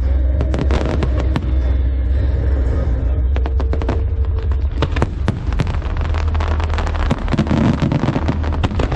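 Aerial fireworks bursting: many sharp bangs in irregular volleys, thickest in the second half, over a steady low rumble.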